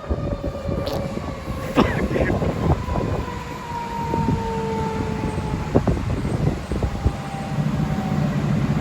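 Fire truck siren with its tone sliding slowly downward over several seconds, over the rumble of the fire apparatus's engine, which grows louder near the end.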